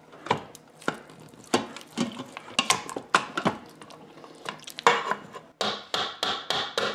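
Potato masher knocking against the bottom of a stainless steel Instant Pot inner pot while mashing boiled potatoes with cream and butter. The knocks are spaced out at first, then come quicker, about four a second, in the last second and a half.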